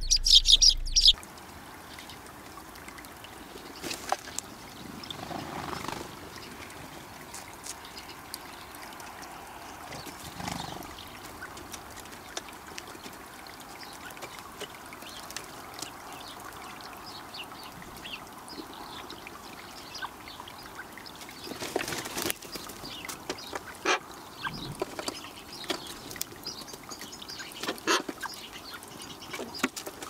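House sparrows chirping loudly for about the first second, then a sudden drop to quiet outdoor ambience. Over it come scattered sharp taps and short bird calls as a female pheasant and magpies feed at a wooden ground feeder, busiest near the end.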